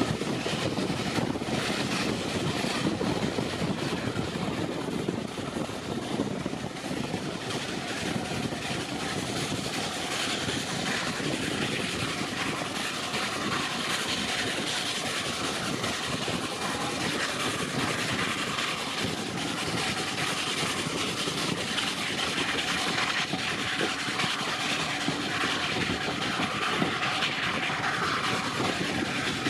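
Steady rumble and clatter of a steam-hauled train's carriage wheels on the rails, heard from an open carriage window, with the steam locomotive working up the gradient ahead.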